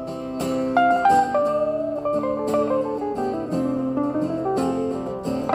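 Electric guitar playing a bluesy lead line with bent, gliding notes over strummed acoustic guitar chords.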